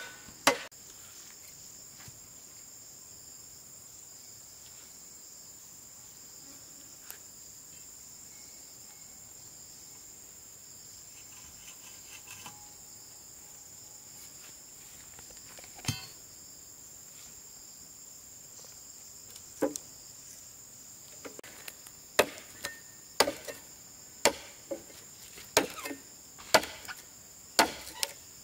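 Sharp blows of a hand tool striking wood: one just after the start, a single blow in the middle, then a steady run of blows about two a second through the last third. A constant high insect drone runs underneath.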